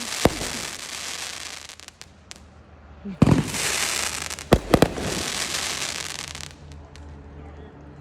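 Aerial fireworks going off: sharp bangs, with a loud one about three seconds in and two more close together a second and a half later, each trailed by a long crackling hiss from the bursting shells.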